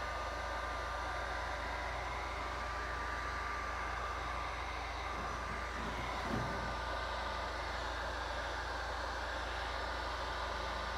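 Electric heat gun running steadily: a constant rush of blown air from its fan with a thin, high, steady whine.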